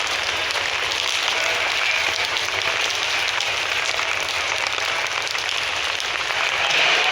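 Steady rain falling: a dense, even hiss of drops.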